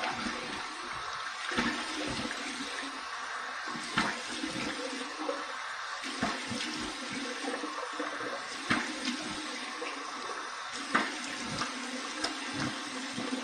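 Cold water from the bathroom sink tap running steadily while it is splashed onto a freshly shaved face by hand, with irregular splashes standing out over the flow.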